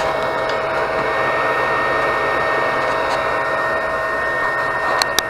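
Cooling fans of an Anycubic Chiron 3D printer whirring steadily, with a few steady whining tones over the rush of air. A few sharp clicks come near the end.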